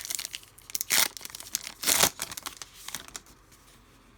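Trading cards being handled and slid across one another, a crisp rustle and crinkle with three sharp swishes about a second apart, dying down after about three seconds.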